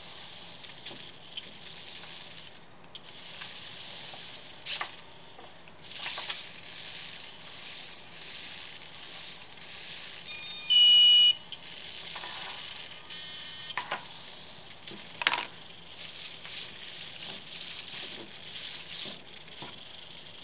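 The cheap hobby RC servos of a Petoi Nybble robot cat whir in short repeated bursts, with a few clicks, as it moves its head and legs and rises to stand. About halfway through, a loud electronic beeping tune sounds briefly.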